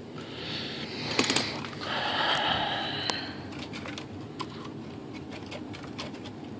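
Small metal linkage parts being handled and worked by hand: a scraping rub with a cluster of sharp clicks about a second in, then light scattered ticks and taps.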